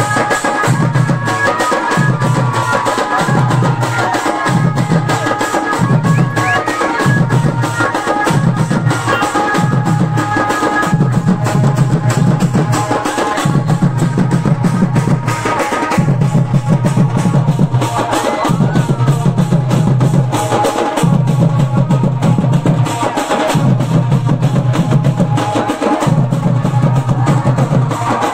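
Several double-headed barrel drums beaten together in a steady processional rhythm, a deep stroke about once a second under quicker higher strokes.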